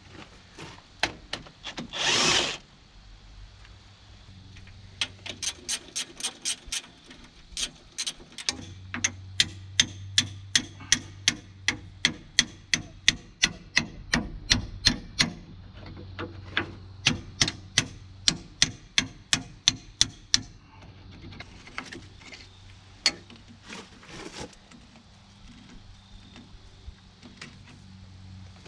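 Wrench work on a blown hydraulic line on a bulldozer: long runs of sharp, evenly spaced metal clicks, about three a second, typical of a ratchet working a fitting loose. There is a brief loud rush of noise about two seconds in.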